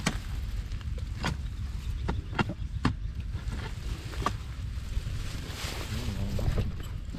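About six sharp, irregular knocks over a steady low wind rumble on the microphone, with a brief scraping hiss near the end.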